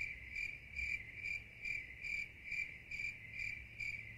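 Cricket chirping sound effect, an even run of about two to three high chirps a second over a low hum, dubbed over the audio to mask a phone number being read out.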